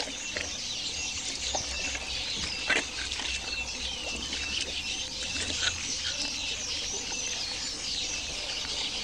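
A chorus of birds chirping and calling without a break, with one sharp knock about three seconds in.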